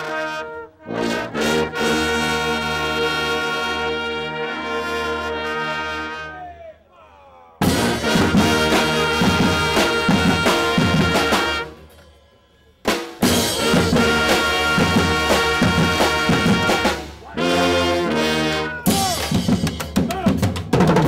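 Brass band music with trumpets and trombones. It opens with held chords, then comes faster playing over drums. The music drops out twice for about a second and starts again abruptly each time.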